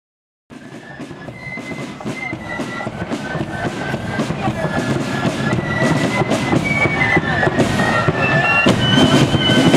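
Marching flute band playing a march: high flute melody over side drums beating steady time. It starts about half a second in and grows steadily louder.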